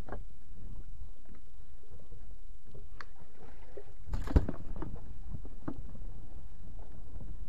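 Steady low rumble of wind and sea around a small boat, with scattered light knocks as a caught fish is handled and a plastic cooler box is opened, and one loud knock a little after four seconds in.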